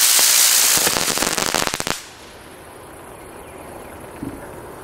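Xplode Feuervogel, a spinning fireworks flyer, rising with a loud hiss. About a second in it breaks into rapid crackling, and everything cuts off suddenly at about two seconds.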